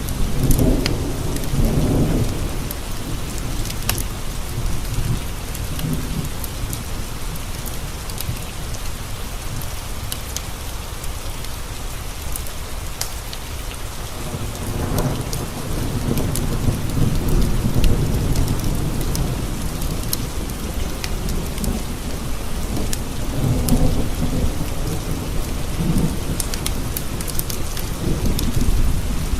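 Steady rain pattering against windows, with low rolling thunder that swells several times: near the start, about halfway through and again near the end. Scattered sharp ticks sound above the rain.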